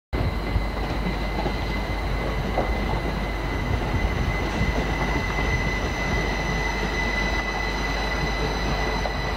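Passenger multiple-unit trains passing slowly with a steady rumble and a continuous high-pitched wheel squeal that holds one pitch throughout.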